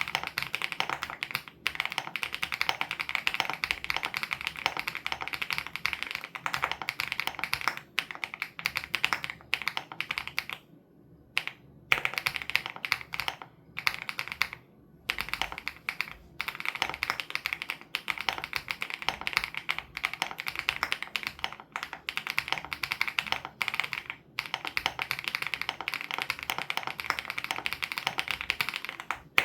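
Typing on a WOB Crush 80 Reboot custom mechanical keyboard with Hyacinth switches: a fast, continuous run of keystrokes, broken by two short pauses about 11 and 15 seconds in.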